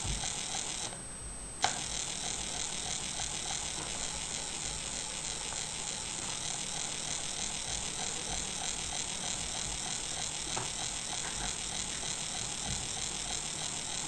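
Unipolar stepper motor stepping continuously with a fast, even ratcheting buzz. It runs briefly at the start, stops for a moment, then starts again with a click a little under two seconds in and keeps running steadily.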